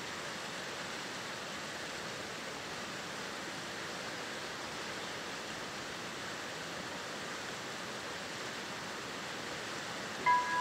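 Steady outdoor hiss of wind and ambience at a railway level crossing. Just before the end, the crossing's warning bell starts ringing with a bright, chime-like ding.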